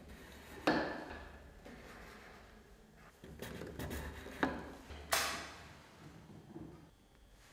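Handling noise from the brass Helmholtz resonators of a Koenig harmonic sound analyser being adjusted by hand: light metal knocks and sliding scrapes. The sharpest knock comes about a second in, with two more close together a little past the middle.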